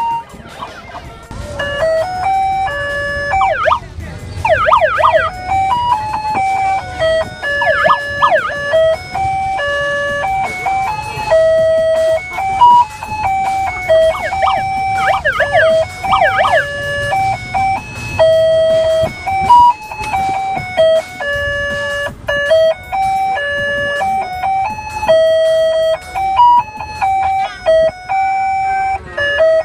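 A simple electronic jingle played note by note in a steady, plinking melody, like an ice-cream van or fairground ride tune. Three times, rapid siren-like pitch sweeps wail up and down over the melody.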